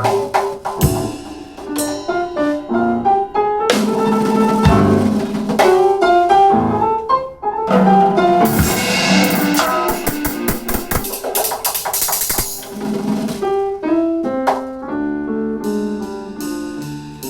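Instrumental music: a drum kit and piano playing together, with a wash of cymbals through the middle; near the end the drums thin out and piano notes carry on.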